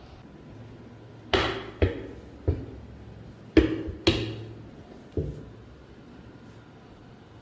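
Six sharp knocks in an uneven rhythm, each ringing briefly, with two close pairs among them.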